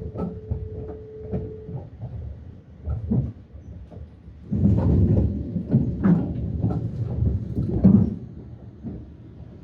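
Metra Electric gallery car riding along the track: a steady rumble with wheels clicking over rail joints and the car rattling, growing louder about halfway through and easing off near the end. A faint steady tone sounds for the first couple of seconds.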